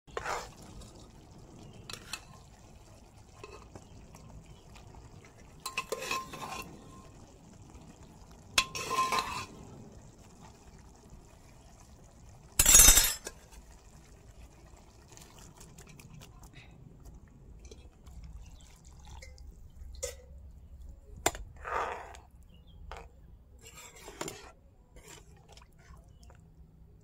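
Metal ladle stirring and scraping a thick curry in a kadai, with scattered short clinks and clatters. About thirteen seconds in, boiled black chickpeas and taro are tipped in from a pressure cooker in one short, loud splashing pour, the loudest sound of all.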